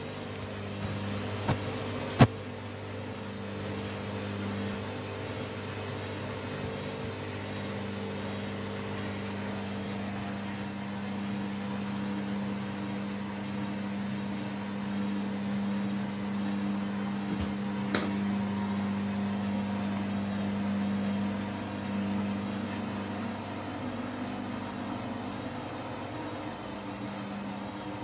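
Candy front-loading washing machine running its final spin, a steady motor hum at a constant pitch. A sharp click comes about two seconds in and a fainter one near the middle.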